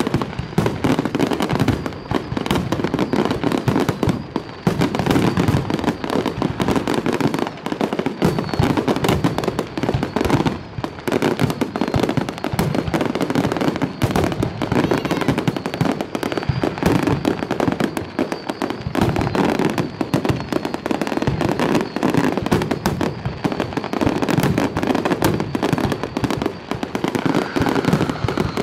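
Fireworks display: a dense, unbroken barrage of bangs and crackling, shot after shot with no let-up.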